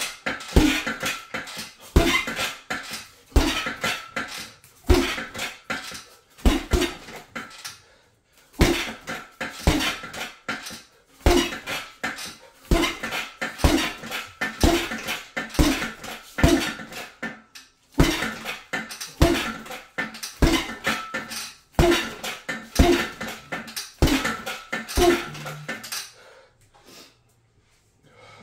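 Repeated thuds with a clattering rattle from a boxing jab drill, coming about one to two a second, often in quick pairs, and stopping about two seconds before the end.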